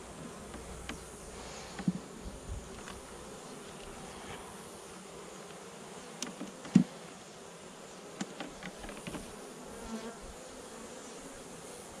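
Honeybees buzzing around an opened hive, a steady hum. A few light knocks from the hive frames being handled, the loudest about seven seconds in.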